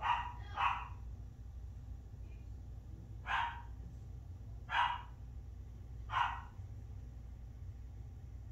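A dog barking off to the side: five short, sharp barks, two in quick succession at the start, then three spaced about a second and a half apart, over a steady low hum.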